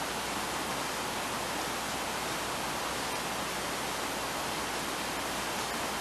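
Steady, even background hiss with no distinct sounds in it.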